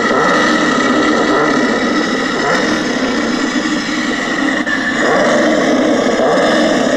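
Toy radio-controlled car's electric drive motors running, a loud steady whirring whine; the sound shifts about five seconds in.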